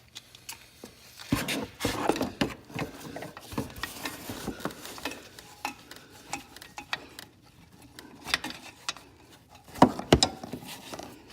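Metal hand tools clinking and scraping as a socket is swapped and a 10 mm check plug is threaded into an ATV transfer case and snugged. Irregular clicks and rubbing, with a few louder knocks near the end.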